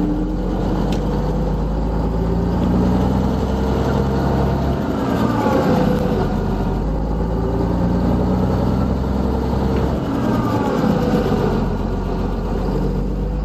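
Heavy truck diesel engine pulling under load. It eases off briefly for gear changes about five and ten seconds in, and its pitch rises again after each change.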